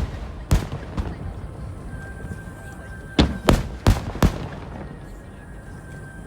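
Aerial fireworks shells bursting in sharp booms: one about half a second in, then four in a quick run between about three and four and a half seconds in.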